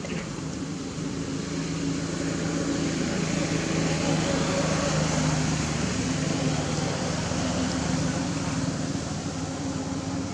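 A low, steady motor-engine hum with a noise haze, growing louder over the first few seconds and easing off near the end, as of a vehicle passing.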